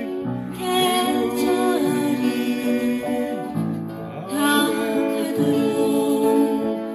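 Upright piano played by ear, chords and melody held through, alongside a singing voice that slides between notes.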